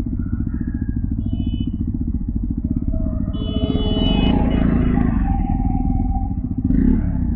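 Motorcycle engine running while riding, a steady low rumble with the fine pulsing of the engine mixed with wind on the microphone. A short high tone sounds about a second in and again, louder, around three and a half seconds in.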